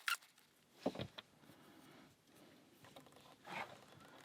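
Faint clicks and scraping of a homemade single-pin pick and tension wrench working the pins of a five-pin lock, with a sharp click at the start, a few more clicks about a second in, and a scratchy rub near the end.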